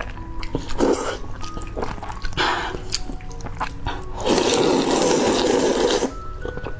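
A person slurping noodles coated in thick dark sauce: two short slurps, about a second in and again near two and a half seconds, then one long loud slurp of about two seconds.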